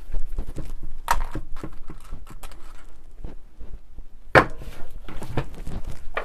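Hand-tool work on the rotary hammer's housing: a run of small clicks and scrapes, with two louder sharp knocks about a second in and just past four seconds.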